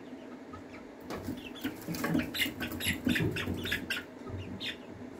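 A group of young chickens, about eight weeks old, calling in many short, high cheeps that come thick and fast from about a second in and thin out near the end. There is some wing flapping and scrabbling on the steel tank rim mixed in.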